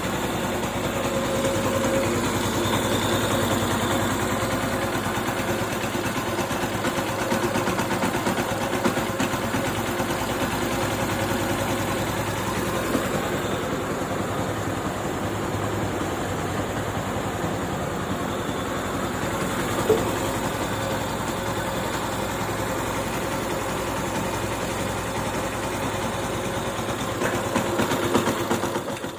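Yamaha FZ-S V2 FI's fuel-injected single-cylinder engine running steadily at idle, with the knocking (khat-khat) noise the bike came in for, which the mechanic says is not tappet noise and suspects comes from crank bearing or connecting-rod play.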